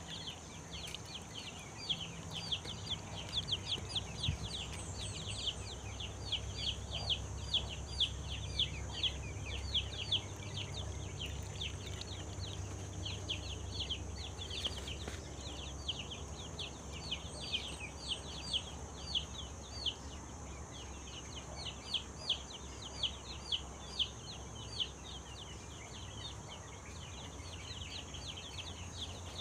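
Chickens peeping: quick, high calls several a second, coming in bursts, over a low steady hum.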